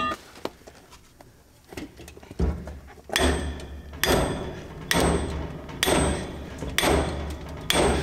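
Hammer blows on the steel drive parts of a Wheatheart auger, each with a short metallic ring. A few scattered hits come first, then a steady run of strikes about one a second. They are driving the gear off the power takeoff shaft to get at the bearing.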